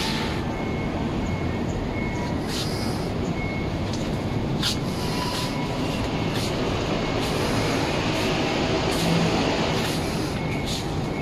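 Steady rumble of city traffic rising from the streets below, with faint short high beeps now and then.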